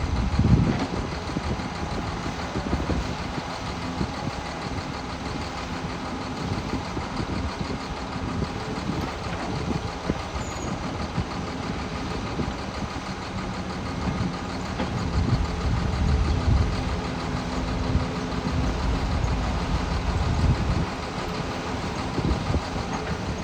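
Diesel engine of a Caterpillar hydraulic excavator running steadily, with louder surges in its low rumble about two-thirds of the way through and again near the end.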